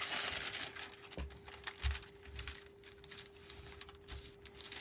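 Sheet of protective paper rustling and scraping as an electric iron is slid and pressed over it, with a few dull low knocks as the iron is set down and pressed.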